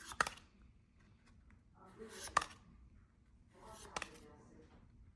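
Pokémon trading cards being flipped through by hand: a card slides off the stack with a papery swish and a light snap three times, about every two seconds.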